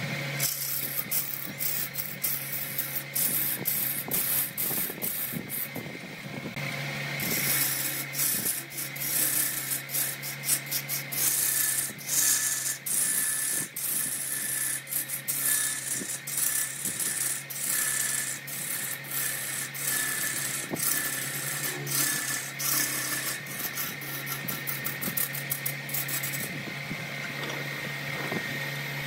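Wood lathe running with a steady motor hum while a gouge cuts into a spinning redwood blank, scraping and rattling as shavings fly off. The cutting lets up briefly about six seconds in and stops near the end, leaving the motor's hum on its own.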